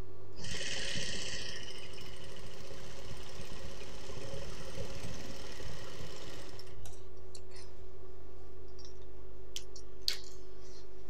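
Industrial single-needle sewing machine running for about six seconds, topstitching along the edge of the folded hem, then stopping. A few sharp clicks follow near the end.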